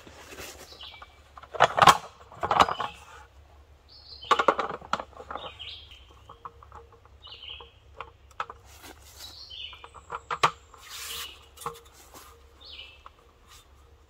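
Aluminium slats of a roll-up camp table clattering and knocking as the tabletop is unrolled and seated on its folding frame, loudest about two seconds in and again around four seconds in. A songbird gives short chirps every second or two.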